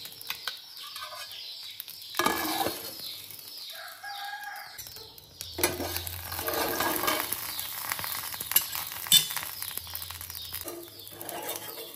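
Dosa sizzling on a cast-iron tawa, with sharp metal clinks of a steel plate being set over it as a lid. A rooster crows and birds chirp in the background.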